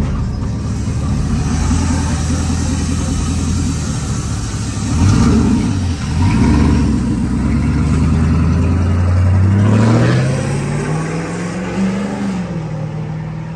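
Pickup truck engine running with a steady deep note, dipping briefly twice about five seconds in. Around ten seconds in, the engine note climbs steadily in pitch, as in a slow rev, then eases back a little and holds.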